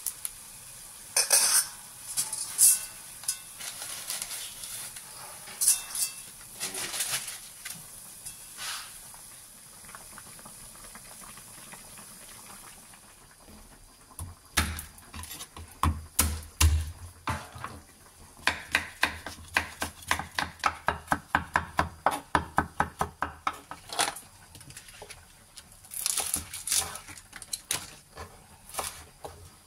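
Water boiling in a wok with a few sharp clinks of utensils against the pan. Then a kitchen knife on a wooden cutting board: a few heavy knocks over a garlic clove, followed by fast, even chopping at about four to five strokes a second, and a few more knocks near the end.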